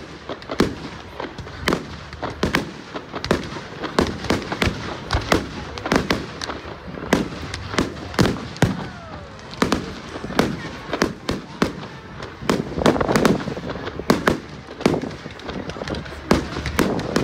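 Fireworks going off in quick, irregular succession, several bangs a second, thickening into a denser run of bursts about thirteen seconds in.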